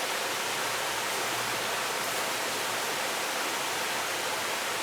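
Steady rushing of flowing river water, an even hiss with no breaks or strokes.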